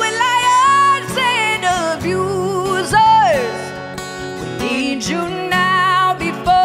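Country-style song with acoustic guitar under a held, wavering melody line that slides down about three seconds in.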